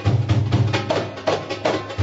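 Background music with a steady percussive beat, about three hits a second, over a held bass line.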